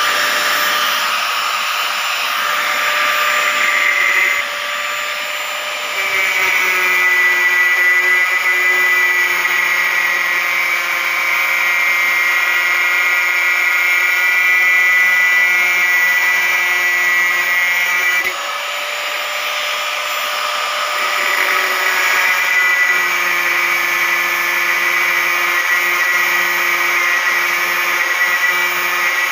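Black & Decker 820 W angle grinder running at full speed with a steady high whine, its thin cut-off wheel grinding through a thin steel rebar. The tone changes about six seconds in as the wheel bites, eases near the middle and then bites again.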